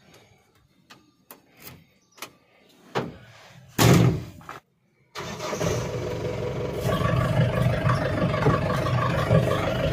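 Jeep door and cab being handled, with scattered clicks and one loud knock about four seconds in, then from about five seconds the diesel engine of an old Mahindra Thar DI running steadily as the jeep moves off.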